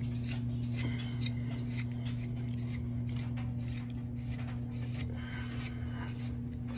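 Hair pick scratching through short, tightly coiled hair in quick, irregular strokes, over a steady low hum.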